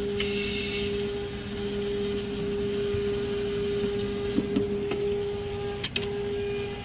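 A few sharp plastic clicks and snaps, one after another, as the top cover of a TVS LP 44 BU thermal label printer is unlatched and lifted open, over a steady electrical hum.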